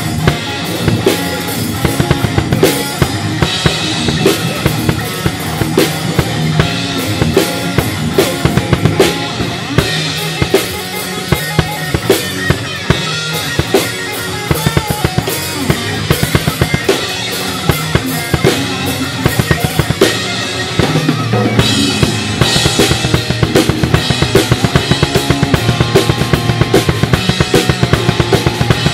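Acoustic drum kit played hard: bass drum, snare and cymbals in a steady rock beat over recorded music. The strokes get faster and more even in the last several seconds.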